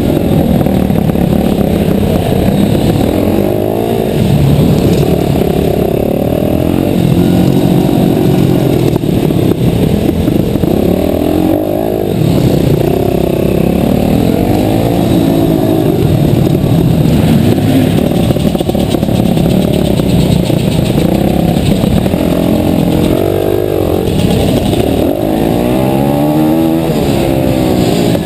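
Mini motocross bike engine running hard, its pitch rising and falling over and over as the throttle is opened and shut. The sound is dull, with little in the high range.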